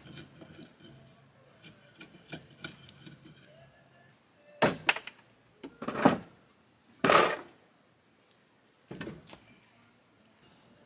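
Short log chunks knocking against one another and the wooden deck as they are handled: a few light clicks, then four separate loud wooden knocks spread from about four to nine seconds in.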